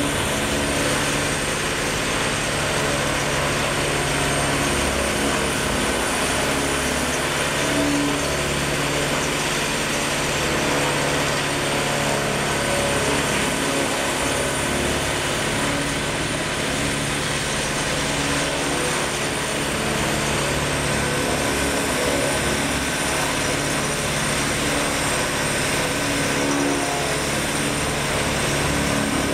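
Morbark tub grinder running steadily under load while brush and logs are ground in its rotating tub: a constant engine drone with a dense grinding noise and a steady high whine above it.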